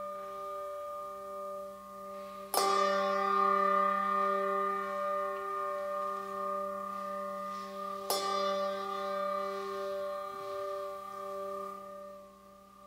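A bell struck twice, about five and a half seconds apart. Each strike rings on in a long, slowly wavering tone that fades away near the end.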